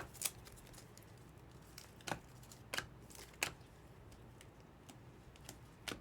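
Trading cards being handled and sorted by hand: about five short, sharp clicks and snaps of card stock, spread over a few seconds, over a faint steady low hum.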